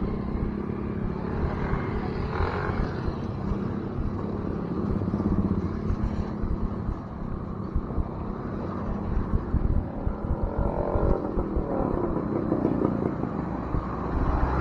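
Steady outdoor rumble of wind on the microphone and road traffic, with a vehicle passing about two seconds in and another, longer pass near the end.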